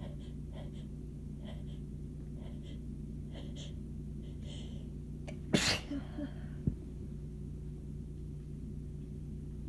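A sneeze from a sneezing fit: several short, faint catching breaths build up, then one sharp sneeze comes a little past halfway, followed by a couple of small after-sounds. A steady low hum runs underneath.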